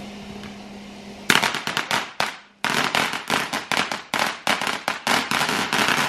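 Ground fountain firework hissing steadily, then from about a second in breaking into rapid loud crackling pops, with a brief pause around two seconds in before the crackling resumes.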